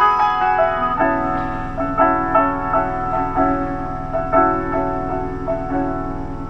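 Piano playing a slow instrumental passage, notes struck about twice a second and left to ring and fade.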